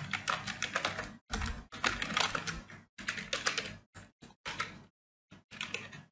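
Computer keyboard keys clicking in quick runs of keystrokes as text is typed, with a short pause about five seconds in.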